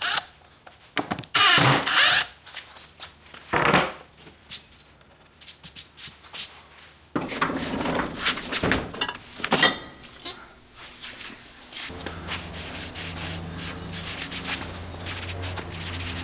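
A cordless impact driver runs a screw into a wooden board in a few short bursts. Then come the knocks and clatter of a metal cabinet door opening and items being handled. Then an abrasive pad scrubs steadily over a bare steel saw blade, over a steady low hum.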